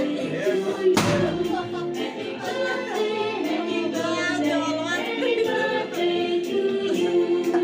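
A song with singing voices plays over music. There is a single sharp crack about a second in.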